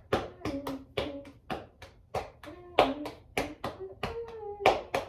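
Hands clapping in a steady rhythm, about three claps a second, with a voice holding a few low notes between the claps.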